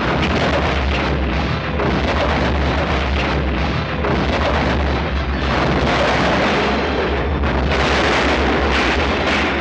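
Volcanic eruption and earthquake sound effects: a loud, continuous rumbling and crashing that swells and eases in waves, with the noise of collapsing rock.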